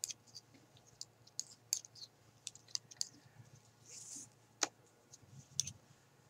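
Metal knitting needles clicking against each other as stitches are worked: light, irregular ticks, with one sharper click past the middle and a short rustle of yarn or handling just before it.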